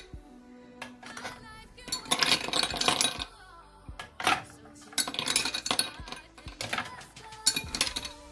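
Ice cubes dropped into a glass, clinking sharply several times at uneven intervals, over soft background music.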